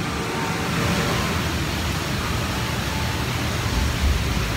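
Steady rushing noise of an indoor boat ride, with a low rumble underneath.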